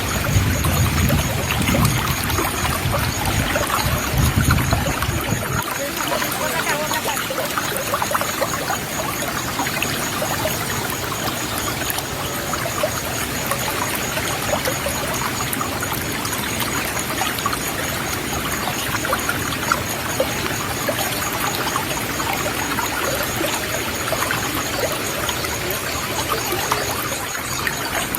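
River water flowing steadily. A low rumble under it stops about five seconds in.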